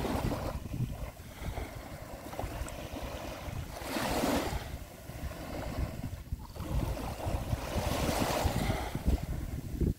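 Small waves washing onto the shore, swelling about every four seconds, with wind buffeting the microphone.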